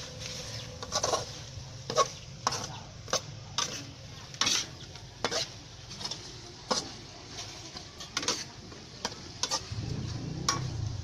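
A metal spatula scrapes and clanks against a thin aluminium wok while stir-frying, striking roughly once or twice a second. Under the strokes the food sizzles steadily in the hot pan.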